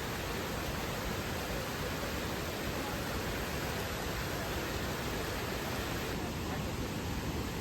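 Steady rushing of a waterfall: a constant, even roar of falling water.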